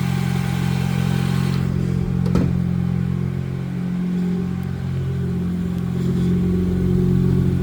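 Car engine with a newly rebuilt cylinder head idling steadily, with a single short knock about two and a half seconds in.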